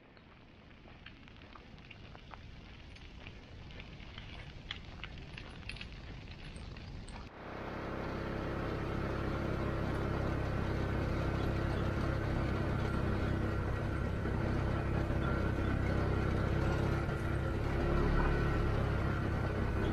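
Fire crackling faintly through pine litter and brush, with scattered pops and slowly growing louder. About seven seconds in, after a cut, a vehicle engine takes over, running steadily and much louder.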